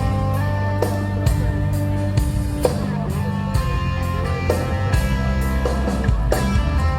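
Live rock band playing an instrumental passage: electric guitar lines over bass and a drum kit keeping a steady beat.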